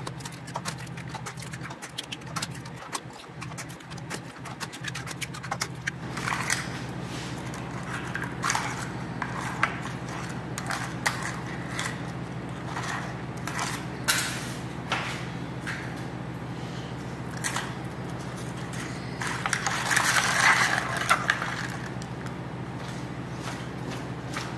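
Raw eggs being cracked one after another into a mixing bowl: a string of short sharp taps and eggshell cracks, over a low steady hum.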